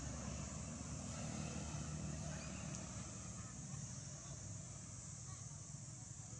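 Steady outdoor background: a low rumble under a constant high hiss, with a few faint short chirps, easing off slightly toward the end.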